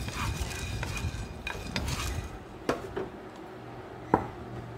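Wooden spatula stirring black peppercorns around a hot nonstick frying pan, the peppercorns rattling and scraping over the pan as they roast. The stirring stops about halfway through, leaving a couple of single sharp clicks.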